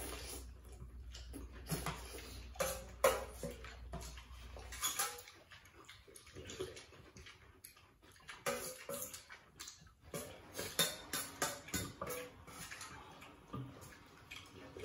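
People eating noodle soup: wet slurps and chewing mixed with spoons and forks clinking and scraping against stainless steel bowls, in short irregular bursts. A low hum cuts out about five seconds in.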